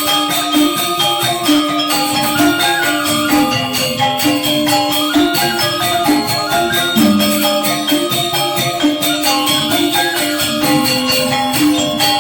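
Balinese gamelan angklung playing: four-tone reong gong-chimes and bamboo grantangan xylophones strike fast, interlocking melodic patterns over a dense run of quick metallic strikes.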